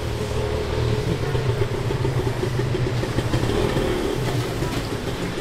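A motor vehicle's engine running, a steady low hum that wavers slightly in pitch.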